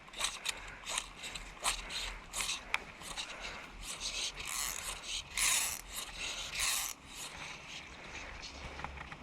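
Vintage skeleton fly reel's click-pawl ratchet sounding in short irregular buzzes and single clicks, as happens when line is pulled off or wound onto it.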